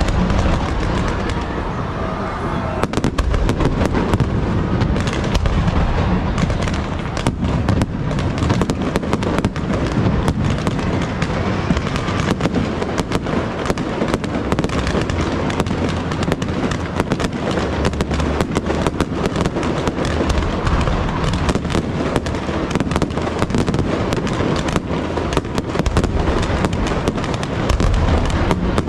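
Aerial fireworks display: a dense, continuous barrage of sharp bangs and crackling over a steady low rumble.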